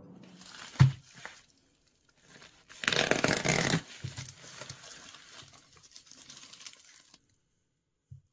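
Packaging rustling and crinkling as a parcel is handled and opened, loudest for about a second near the middle, then lighter rustling. A single sharp knock about a second in.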